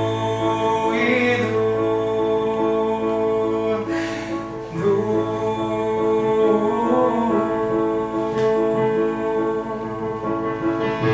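Music: a singing voice over sustained keyboard accompaniment.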